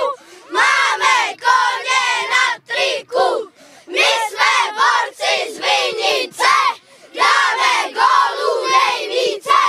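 A team of young boys chanting together in rhythmic shouted bursts, with a short pause about three seconds in.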